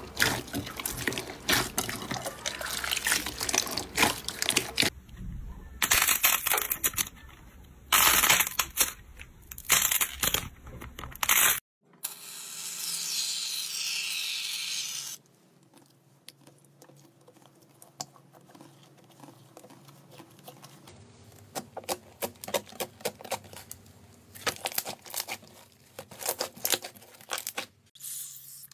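Hands squeezing and kneading wet, bead-filled slime: dense, close squelches and crackles. About twelve seconds in, an aerosol can of shaving foam sprays with a steady hiss for about three seconds, followed by quieter, scattered soft crackles of slime being poked.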